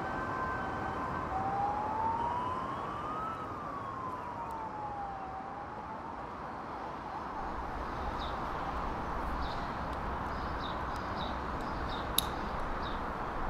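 City traffic hum with an emergency siren wailing once, its pitch rising slowly and then falling a few seconds in. Near the end, a few short high chirps and one sharp click.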